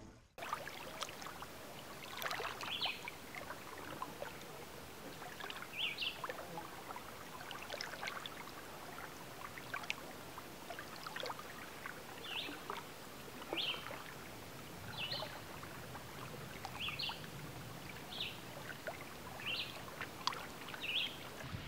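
Gentle lake water lapping and trickling at a sandy, pebbly shoreline, with small light splashes at uneven intervals. In the second half a short high chirp repeats roughly every second or two.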